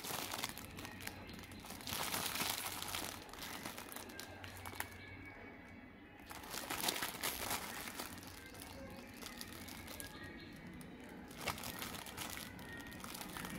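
Clear plastic packaging crinkling as a bagged plastic toy car is handled and turned over, louder in bouts about two seconds in and again about seven seconds in.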